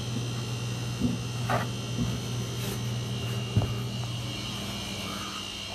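Steady low electrical hum that eases off a little past the middle, with a few short knocks and bumps from the phone being handled as it is carried.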